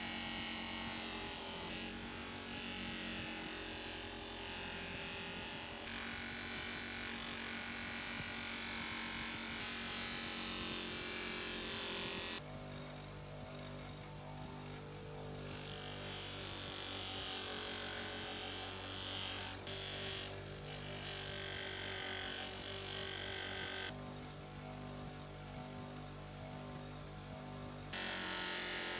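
Bench grinder with a buffing wheel running steadily, its motor humming, while fine polishing compound and then a steel pliers jaw are pressed against the spinning wheel for mirror polishing. A loud rushing noise comes while work is against the wheel, and drops away abruptly twice, leaving just the motor hum.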